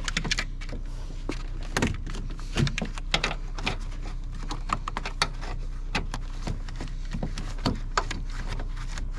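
Irregular metallic clicks and knocks from a hand wrench working a stuck battery hold-down bolt in a pickup's engine bay.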